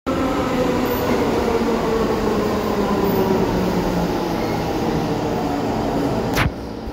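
R46 subway train pulling into the station alongside the platform: loud wheel and track rumble with a whine in several tones that slowly falls in pitch as the train slows. About six and a half seconds in there is a sharp click, after which the sound is much quieter.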